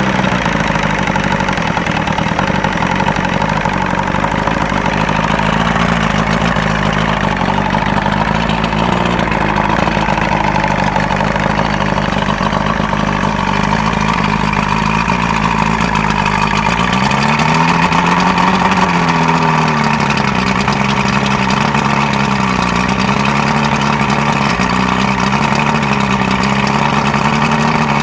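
1994 Johnson 90 hp V4 two-stroke outboard running steadily on a flushing hose. About seventeen seconds in the revs rise briefly and drop back, then waver gently up and down.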